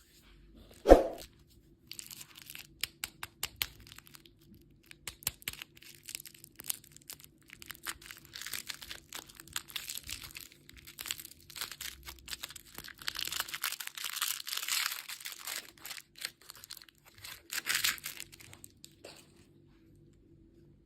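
Candy packaging being torn open and crinkled close to the microphone: a long run of crackles, rustles and small clicks, louder in stretches, after a single sharp knock about a second in.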